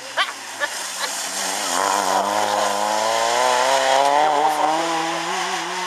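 Citroën Saxo rally car's four-cylinder petrol engine accelerating hard out of a corner, its pitch dropping low and then climbing steadily as it pulls away. A few sharp cracks come near the start.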